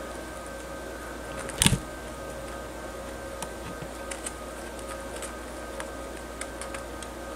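Sugar gliders chewing pomegranate flower petals: scattered small clicks and rustles over a steady hum, with a single loud knock about a second and a half in.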